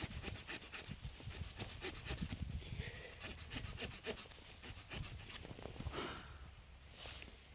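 Saw blade of a Victorinox RangerWood 55 pocket knife cutting through a wooden branch in repeated rasping back-and-forth strokes.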